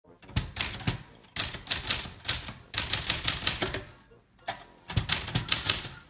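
1970 Royal Sprite lightweight plastic portable typewriter, built by Silver-Seiko, typing: quick runs of sharp keystroke clacks as the type slugs strike the paper on the platen. The clacks come in several bursts, with a short pause about four seconds in.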